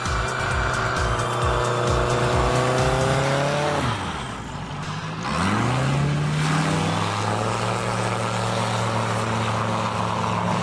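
Single-engine light plane's engine and propeller running: the note holds steady, falls away about four seconds in as the throttle comes back, then climbs again and settles at a steady pitch.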